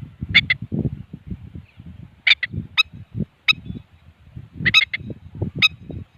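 An adult bird giving short, sharp calls, singly and in quick pairs, about eight in all, over low rumbling noise. These are a parent's protective calls near its fledgling.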